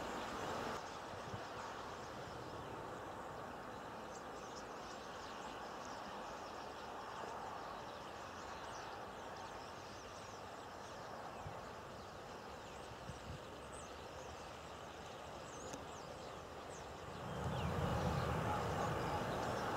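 A large flock of common starlings calling, many short high chirps and chatters over a steady rushing background. It turns louder with a low rumble near the end.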